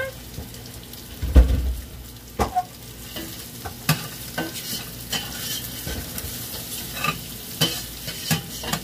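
Sliced hotdog frying in a pan with a steady sizzle, while a utensil stirs it and clicks and knocks against the pan; the heaviest knock comes about a second and a half in.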